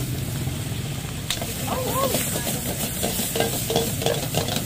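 Food sizzling and frying in a wok over a high gas flame, with a metal spatula stirring and scraping against the pan in short clicks, over the steady rush of the burner.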